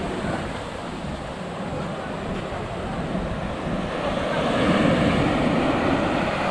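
Sea surf: small waves breaking and washing up over a sandy beach, swelling louder again about four seconds in.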